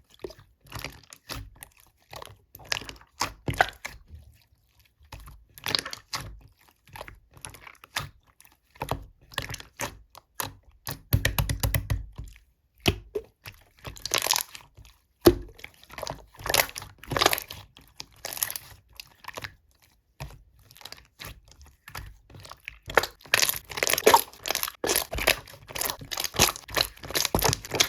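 Slime being squished and pressed by hand, giving a steady stream of short clicks and crackling pops, busiest near the end.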